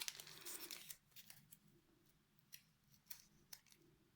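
Faint handling of small craft embellishments and their packaging: a brief soft rustle in the first second, then scattered light clicks.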